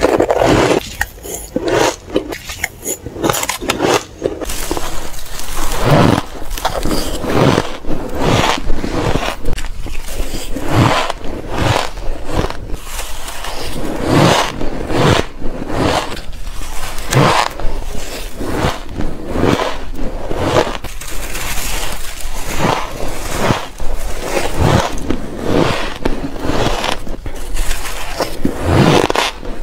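Crushed ice and soft freezer-frost ice being bitten and chewed close to the microphone: a steady run of crunches, one after another.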